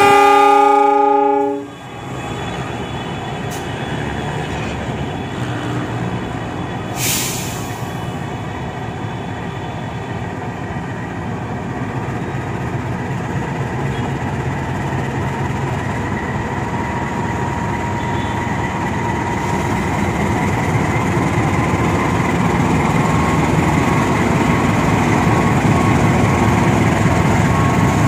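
Horn of a CC 206 (GE C20EMP) diesel-electric locomotive cuts off about a second and a half in, then the locomotive's diesel engine runs steadily as it moves past, growing louder toward the end as it comes close. A short hiss about seven seconds in.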